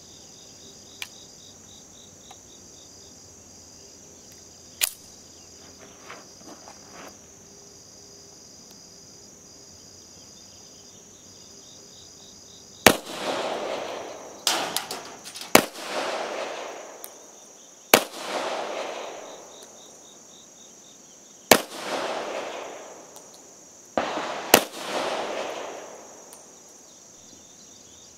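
Campo Giro 1913-16 semi-automatic pistol firing reduced-power 9mm Largo rounds one at a time, about seven shots over the second half, each followed by about a second of echo. Before the first shot there are only a few faint clicks over a steady high insect drone.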